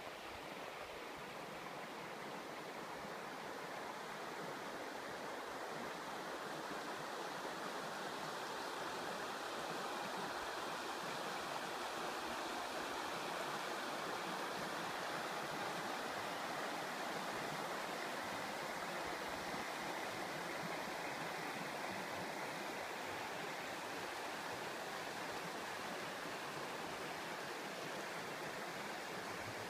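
The Río Castril, a shallow river over a stony bed, flowing with a steady rushing hiss that grows a little louder in the middle.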